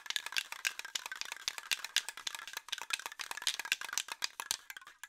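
Aerosol spray paint can being shaken, its mixing ball rattling fast and hard against the metal can.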